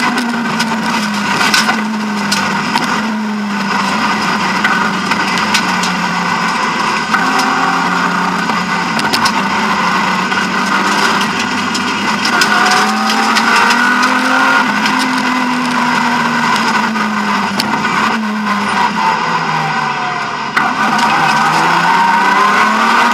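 BMW E36 M3 rally car's straight-six engine, heard from inside the cabin, revving hard at full throttle with the note climbing and falling again and again through gear changes and braking, with scattered clicks and knocks from the car.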